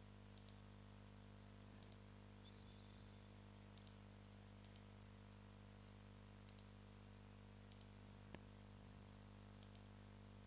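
Near silence with faint computer mouse clicks, each a quick press-and-release pair, every second or two over a steady low hum.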